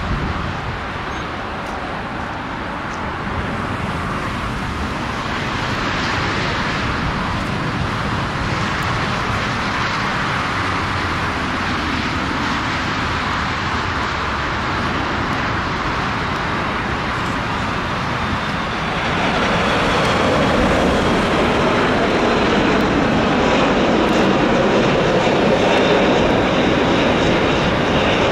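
Boeing 747 freighter's four jet engines at takeoff power during its takeoff roll: a steady jet roar that grows louder about two-thirds of the way through.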